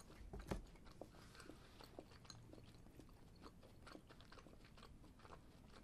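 Faint chewing of a piece of chewing gum: soft, irregular mouth clicks in near silence, a slightly louder one about half a second in.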